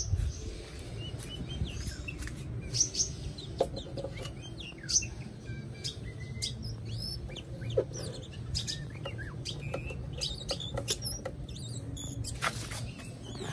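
Songbirds chirping, with many short scattered calls and whistles, and a few sharp light knocks as the bird cage is handled.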